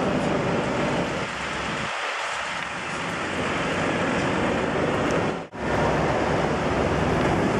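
Steady vehicle and street noise, a dense rumbling hiss with a faint steady low hum, briefly cut out about five and a half seconds in.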